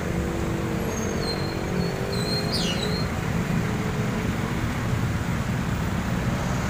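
Street traffic noise: a steady low rumble of road vehicles, with a pitched engine hum over it for the first couple of seconds and a few faint, short high-pitched chirps about halfway through.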